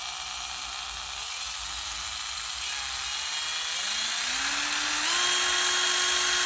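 Deko rotary tool's small electric motor running with a whine that rises gradually in pitch and loudness as the speed control is turned up, stepping higher about five seconds in. It cuts off suddenly at the very end.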